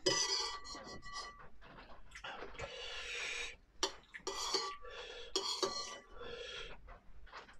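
Eating at the table: repeated noisy slurps and mouth sounds, with utensils scraping and clicking against a bowl or pot.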